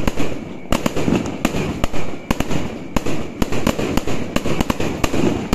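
Aerial fireworks bursting overhead in a rapid barrage: sharp bangs in quick, irregular succession, several a second, with continuous noise between them.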